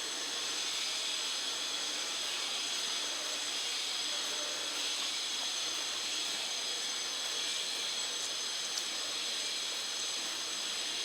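Sabudana vadas deep-frying in hot oil: a steady sizzle.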